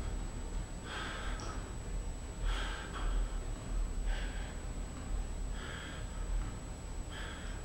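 A man breathing heavily in distress, five sharp gasping breaths about one and a half seconds apart, over a steady low hum.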